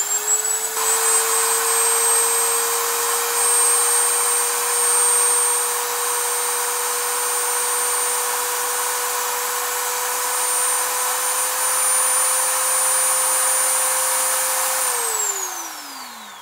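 Dremel rotary tool running with no bit load at a steady high whine, powered through a small inverter; near the end it is switched off and winds down, the whine falling in pitch as it fades.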